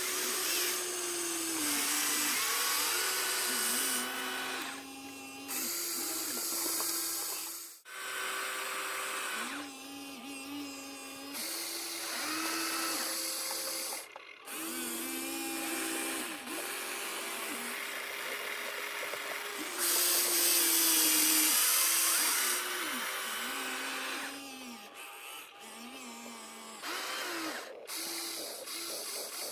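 Small electric motors and gearboxes of radio-controlled excavators and trucks whining in short runs, their pitch rising as they start and falling as they stop, under a steady high hiss. The sound breaks off abruptly twice.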